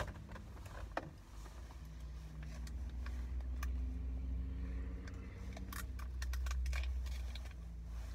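Scattered short crinkles and clicks of eating and handling sandwich wrappers, busiest from about five and a half seconds in. Under them is a steady low rumble inside the car.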